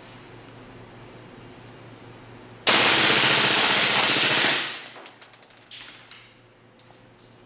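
WE HK416 open-bolt gas-blowback airsoft rifle on green gas firing one full-auto burst of about two seconds, its bolt cycling rapidly, in a rate-of-fire test. A few light clicks follow the burst.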